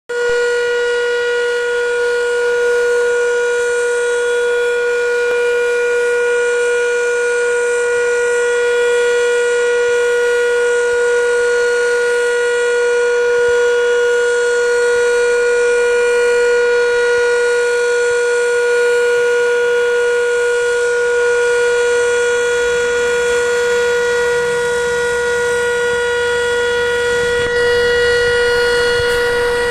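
Fire station alarm siren sounding the call-out, holding one steady tone. From about two-thirds of the way in, the low rumble of the MAN LE280 fire engine's diesel engine rises beneath it as the truck pulls out.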